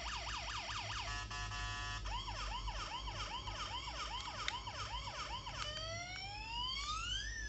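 Toy police car's electronic siren cycling through its sound patterns: a fast yelp, a brief steady tone about a second in, then a slower wail at about three cycles a second, and past halfway a long slow rising wail.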